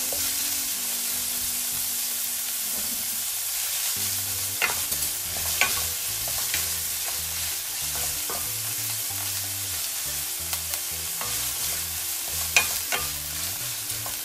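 Ground meat sizzling in hot oil in a non-stick frying pan as it browns, stirred and broken up with a wooden spatula that clicks against the pan a few times.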